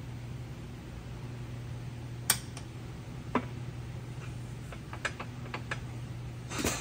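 Light metal clicks and taps as parts are handled and set in a steel crankshaft press fixture, with a sharper click about two seconds in and a few quicker ticks later, over a steady low hum.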